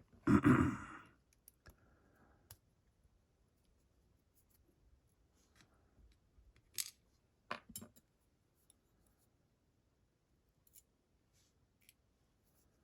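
Small metal lock parts clicking lightly as a pin-tumbler lock is taken apart by hand: a few sparse, sharp clicks, the clearest about seven seconds in and a pair just after. A brief louder sound comes right at the start.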